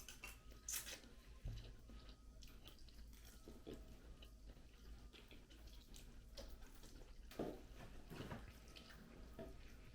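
Faint chewing and wet mouth sounds of people eating instant noodles, with a few scattered soft clicks.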